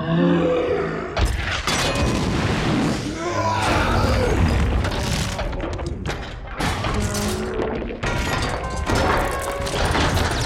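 Movie sound effects of a giant robot being struck by railgun rounds and breaking apart: repeated heavy booms and crashing metal over loud orchestral music.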